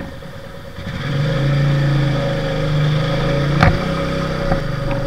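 Motorcycle engine running steadily as it rides, getting louder about a second in, with one sharp knock a little past halfway.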